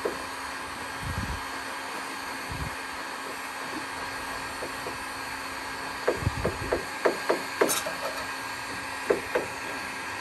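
Heat gun blowing steadily, with a putty knife scraping and clicking against the thin aluminium wing panel as softened panel bonding is pried loose. There is a quick run of sharp clicks about six seconds in and two more near the end.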